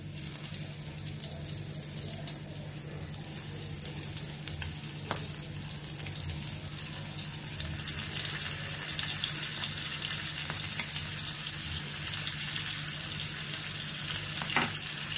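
Flour-coated Indian mackerel (bangda) sizzling as it shallow-fries in hot oil in a pan, the sizzle growing steadily louder as more pieces go in. A steady low hum runs underneath.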